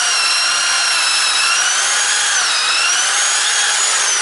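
Bosch GSB 550 corded impact drill running at full speed, boring a wood bit into a rotten log. It makes a steady, loud motor whine whose pitch dips briefly midway and begins to fall near the end as the drill eases off.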